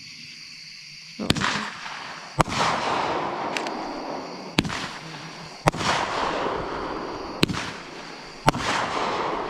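Fireworks going off: after about a second of quiet, about six sharp bangs come at irregular intervals, each trailing off in a fading hiss.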